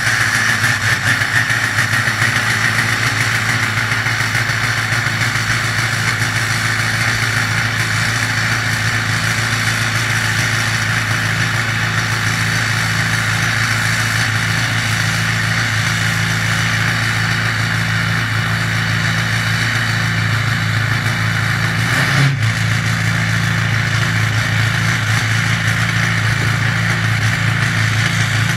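Ford 6.0L Power Stroke V8 turbo-diesel idling steadily on a cold morning just after a cold start, with a strong high rushing sound over the low engine note. A single short knock comes about three quarters of the way through.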